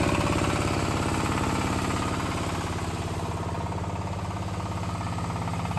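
Changchai diesel engine of a hydraulic DTH drilling rig running steadily at raised throttle after warm-up, with an even rapid pulsing.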